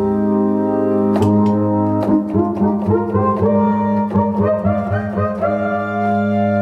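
Alesis Andromeda A6 analog polyphonic synthesizer played live: a held chord over a sustained bass note, with a run of quick notes played on top from about a second in, settling back into a held chord near the end.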